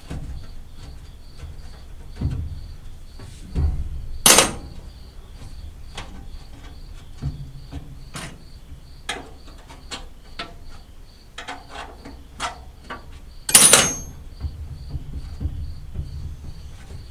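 Hand tools clicking and clanking on metal while engine parts are unbolted, with two loud sharp metallic clanks, one about four seconds in and one near the end. A cricket chirps steadily behind it.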